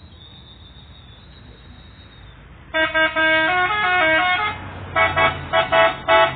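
Telolet multi-tone bus horn playing a quick melody of changing notes for about two seconds, then four short blasts, over a low rumble.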